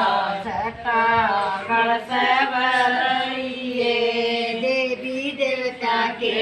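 Group of voices singing a slow, chant-like song in unison, with long held notes over a steady low tone.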